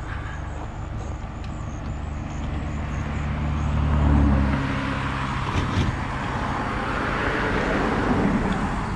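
Motor vehicle engine running steadily, growing louder until it stops about four and a half seconds in, followed by a rushing road noise of passing traffic that swells and eases.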